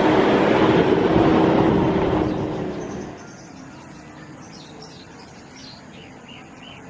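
A car driving on a dirt road, with steady engine and road noise heard from inside the car, fading out about three seconds in. After that, birds chirping in a run of short repeated calls.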